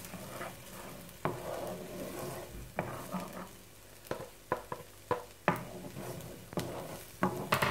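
Chopped onion and garlic sizzling in a hot cast-iron frying pan. A spatula scrapes and taps several times against the pan and the chopping board as the onion is pushed in and stirred.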